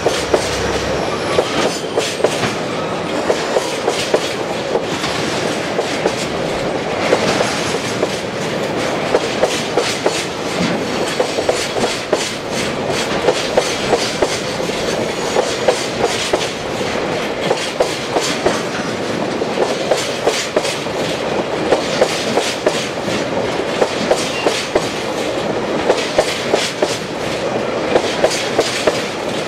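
A freight train of oil tank wagons rolling past, the wheels clicking in groups over the rail joints as each bogie passes.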